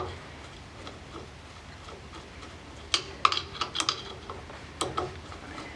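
Light metallic clicks and ticks of a small screwdriver and screws against a distributor's metal housing as the screws are fitted: a cluster of clicks about three seconds in and a few more near the end.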